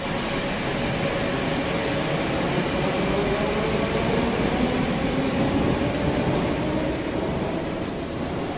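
Steady hum and rumble inside a Moskva-2020 metro train standing at a platform with its doors open, with the running noise of its ventilation and equipment and a faint steady tone.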